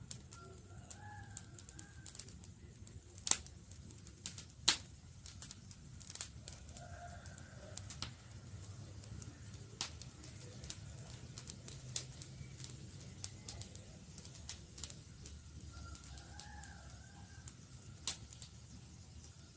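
Campfire crackling: irregular sharp pops and snaps over the low steady rumble of the burning wood, the loudest pops about three and a half and five seconds in and again near the end. Faint bird calls a few times in the background.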